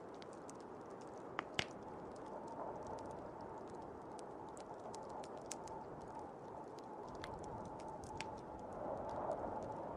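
Blizzard wind blowing steadily with a fire crackling over it, scattered sharp pops and two louder snaps about one and a half seconds in.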